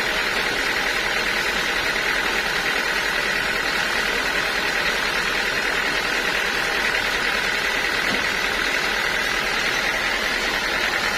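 Sawmill saw running steadily through teak wood: a continuous mechanical noise with a steady high whine.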